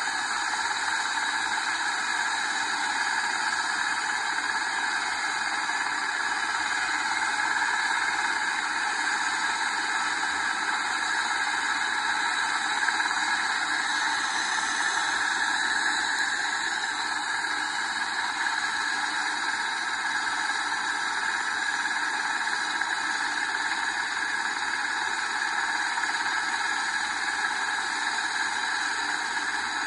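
STARS air ambulance helicopter running on the ground before takeoff: a steady turbine whine over a rushing noise that stays even throughout.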